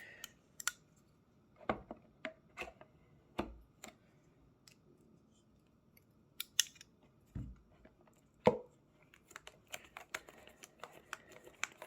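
Hands working at the packaging of a trading-card box to open it: irregular sharp clicks and snips with quiet between, the loudest crack about eight and a half seconds in.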